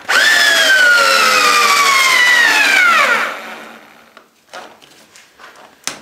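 Cordless drill-driver driving a large wood screw into a wooden board. Its motor whine falls slowly in pitch, then drops sharply and stops about three seconds in. A few light knocks follow.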